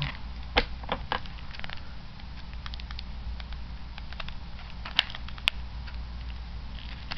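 Light clicks, taps and rustles of a clear plastic deck box being handled and worked at with scissors, including two sharp snaps about half a second apart near the middle. A steady low hum runs underneath.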